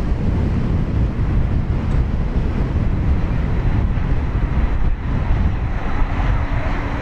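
Jet airliner engine noise with wind buffeting the microphone. The sound builds toward the end, and a steady hum joins about six seconds in.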